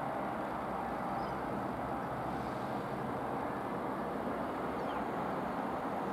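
Ferrotramviaria ELT 200-series electric multiple unit approaching slowly on the rails, a steady running noise with a faint steady hum.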